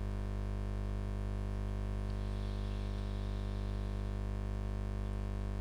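Steady electrical mains hum, a low buzz with many evenly spaced overtones, holding at one level throughout, with a faint hiss over it.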